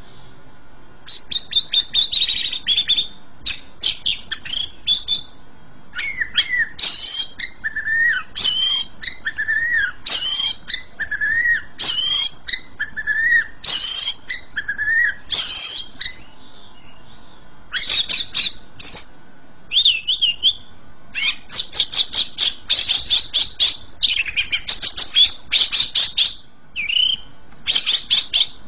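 Greater green leafbird (cucak ijo) in full song. It repeats whistled phrases of swooping notes about every two seconds. After a short pause about two-thirds of the way through, it breaks into fast rattling trills.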